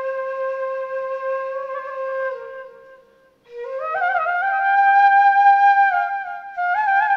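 Solo flute music: long held notes with small ornaments. It breaks off briefly about three seconds in, then returns with a higher phrase.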